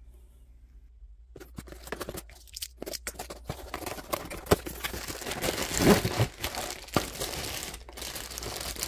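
Packaging being unwrapped by hand: dense crinkling and tearing that starts about a second and a half in, with a few sharper crackles along the way.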